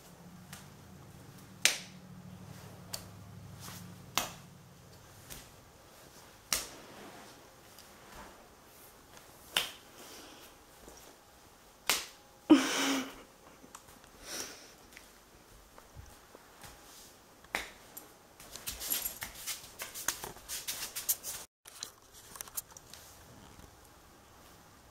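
A house cat playing on a tile floor among toys and a cardboard scratcher gives scattered light clicks and taps. About halfway there is one short vocal sound, and near the end a run of quick rasping scratches lasts about three seconds.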